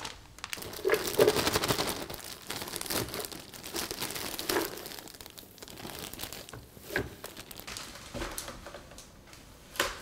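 Plastic bag crinkling as chopped vegetables and leafy greens are shaken out of it into a blender jar, loudest in the first couple of seconds, with a few light knocks near the end.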